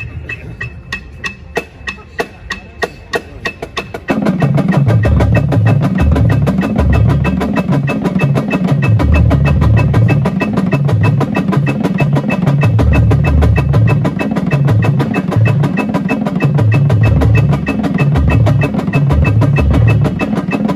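Drum-corps battery of snare, tenor and bass drums playing a legato warm-up exercise at a faster tempo. Evenly spaced clicks count it off, and about four seconds in the full line comes in loud, with heavy bass-drum strokes under rapid even snare and tenor strokes.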